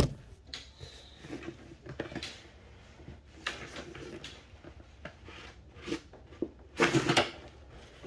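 Handling noise as a Trangia 25 aluminium cook set is worked in a tight-fitting fabric gas mask bag: fabric rubbing and scraping with light knocks and clicks, loudest just before the end.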